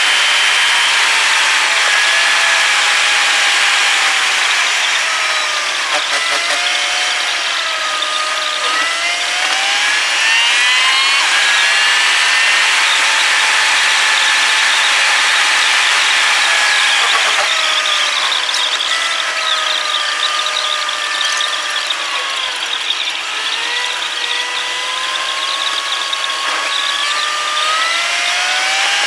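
The engine and road noise of a moving car, played back many times faster than real time, so the engine comes out as a high whine over a steady hiss. The whine glides up and down several times as the car accelerates and changes gear.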